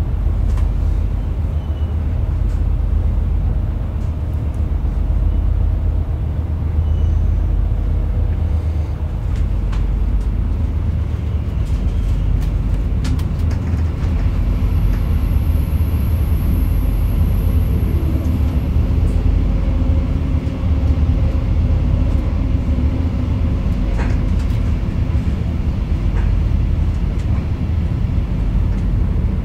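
Steady low rumble of a Metronom double-decker regional train running along the line, heard from inside the passenger coach, with a few faint clicks from the wheels and track. A faint high whine comes in for a few seconds in the middle.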